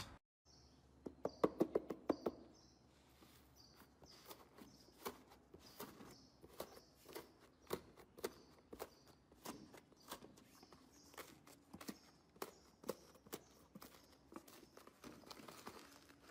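Fluffy white cloud slime being pressed and squeezed by hand, giving a run of crisp crackles and soft sticky pops. The pops come thickest about a second in, then keep coming irregularly.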